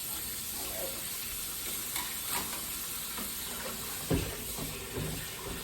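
Steady hiss of water running from a kitchen tap into the sink while dishes are washed, with a sharp clatter of a dish about four seconds in.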